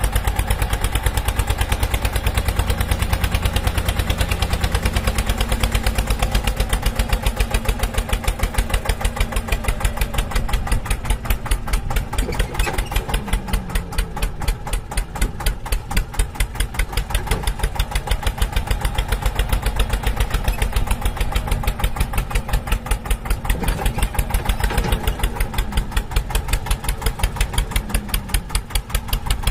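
A tractor-style engine chugging at an even, fast putt-putt beat that never changes speed.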